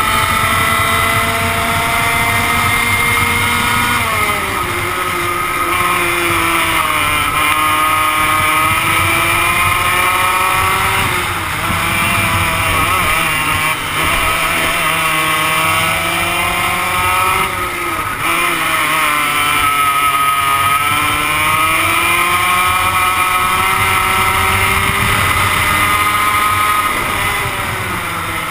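100cc two-stroke go-kart engine heard from onboard at racing revs, its pitch falling as the kart slows for corners and climbing again as it accelerates out, several times over.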